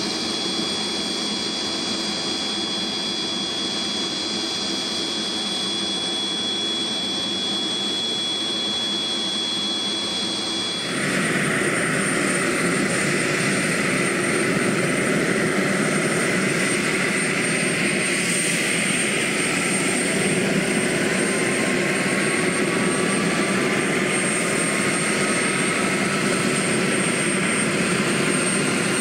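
Antonov An-32's Ivchenko AI-20 turboprop engines running on the ground, a steady high turbine whine. About eleven seconds in the sound changes suddenly to a louder whine, and near the end one tone slowly rises as an engine winds up.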